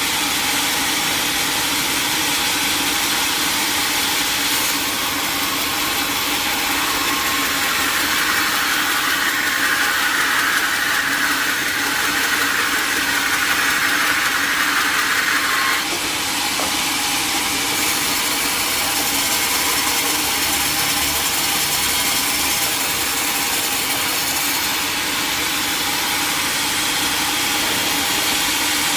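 Sawmill machinery running steadily with a constant mechanical hiss. A higher hiss rises from about seven seconds in and cuts off suddenly about halfway through.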